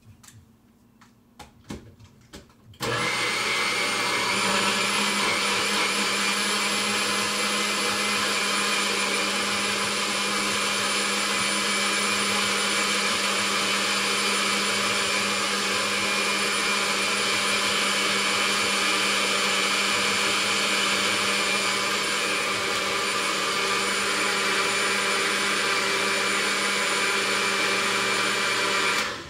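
Single-serve blender running steadily, blending a green smoothie of leafy greens, avocado and coconut water. A few light knocks come first, then the motor starts suddenly about three seconds in and runs at an even pitch until it cuts off abruptly near the end.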